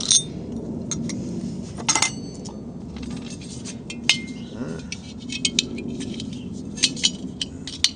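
Scattered light metallic clinks and taps of a screw being tried in the freshly drilled hole of a stainless steel pot lid, with a short scrape about two seconds in.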